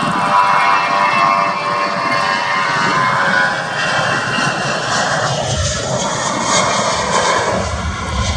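Jet aircraft engines running with a steady whine of several tones that drift slightly lower in pitch, joined by a low rumble about five seconds in.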